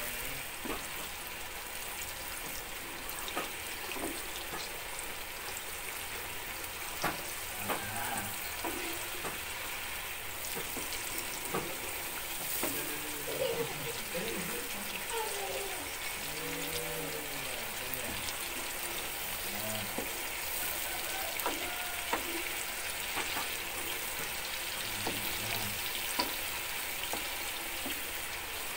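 Spice paste sizzling steadily as it fries in oil in a small pan, with a spatula scraping and clicking against the pan now and then as it is stirred. The paste is being fried until fragrant and kept moving so it does not burn.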